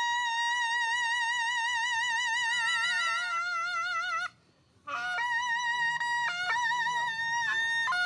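Taepyeongso, the Korean double-reed shawm, playing a jazz melody in long held notes with wide vibrato. A lower held note sounds beneath it for about a second, and the playing breaks off for half a second around four seconds in before shorter notes follow.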